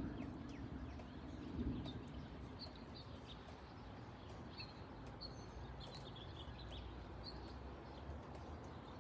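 Birds chirping in short scattered calls, over a low steady outdoor background of wind and distant rumble.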